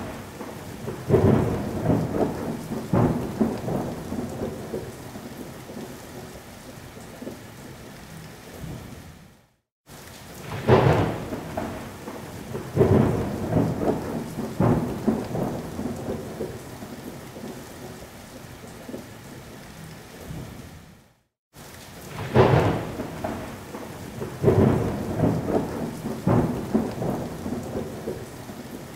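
Thunderstorm: thunder claps rumbling over steady rain. Each time, three loud claps come close together and then the rumble fades under the rain. The same stretch cuts to silence and starts again twice, about every eleven seconds, as a looped recording.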